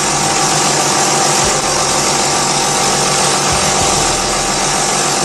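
Hydradermabrasion facial machine running: a steady motor hum with an even hiss over it.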